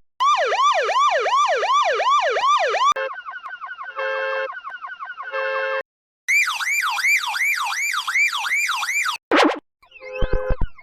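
Electronic police siren in a fast yelp, about three sweeps a second, then a car alarm's stepped alternating tones, then the siren again pitched higher. After a short noisy blast, the car alarm tones return over heavy, distorted thumps near the end.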